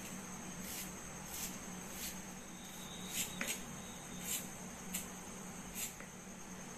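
About nine short scraping swishes as a boti blade cuts small pieces of garlic, ginger and green chilli, coming irregularly about once or twice a second, over a steady low hum.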